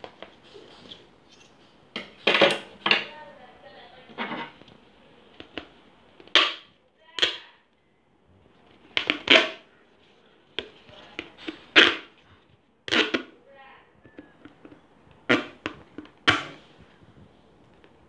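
Plastic plate and thin metal rod being handled, knocking and clicking together in a string of sharp, irregular knocks, about a dozen in all.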